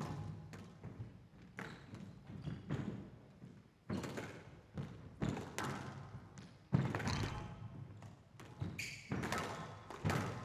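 A squash rally: sharp, irregularly spaced knocks as rackets strike the ball and it hits the walls and floor of the court, about ten strikes in all, with the players' feet moving between shots.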